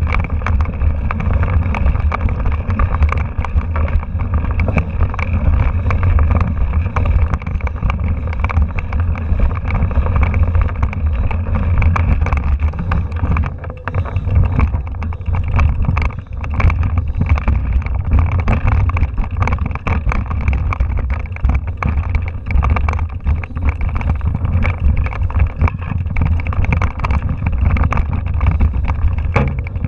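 Mountain bike rattling and clattering over a rocky trail, heard through a handlebar-mounted action camera, with low wind buffeting on the microphone and many small knocks throughout.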